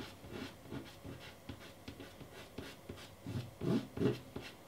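Pastel stick dabbing and scratching on pastel mat in quick short strokes, with two louder low sounds near the end.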